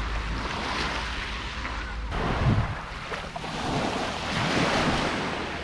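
Small waves washing up onto a pebble beach and drawing back, swelling twice, with wind rumbling on the microphone.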